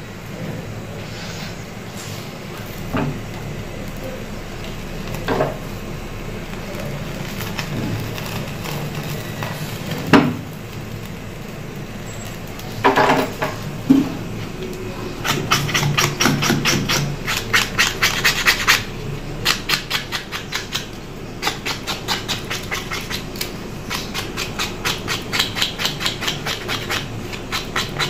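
Singed hair being scraped off a mutton trotter's blackened skin, in quick rubbing strokes about four to five a second through the second half. A few separate knocks and clicks come before the steady scraping starts.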